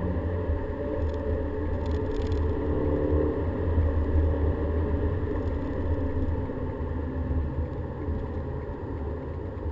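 Volkswagen Golf GTI being driven at speed, heard from inside the cabin: a steady deep drone of engine and road noise. The higher engine note fades about three seconds in.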